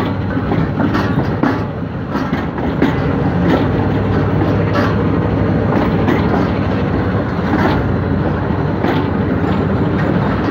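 Passenger train running, heard from an open coach doorway: a steady rumble with the wheels clacking irregularly over rail joints.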